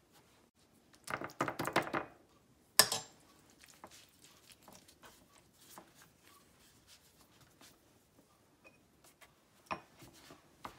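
Hands handling egg roll wrappers on a plastic cutting board: a quick run of taps and rustles about a second in, one sharp knock near three seconds, then light scattered taps against the board.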